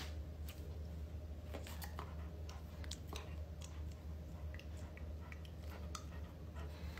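A dog mouthing and nibbling at a hand: faint scattered clicks and smacks over a low steady hum.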